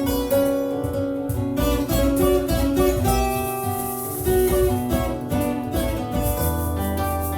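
Improvised acoustic guitar music, a run of plucked notes; a deep held bass note comes in near the end.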